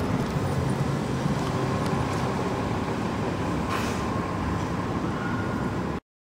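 Steady low rumble of vehicle engines and street noise, which cuts off abruptly about six seconds in.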